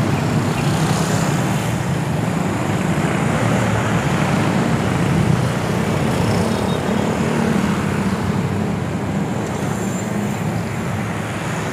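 Steady road-traffic noise from motorcycles and scooters, heard from a moving bicycle among them.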